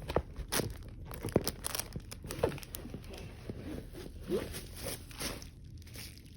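Packing material crinkling and rustling in irregular bursts as items are unwrapped and handled, over a steady low hum.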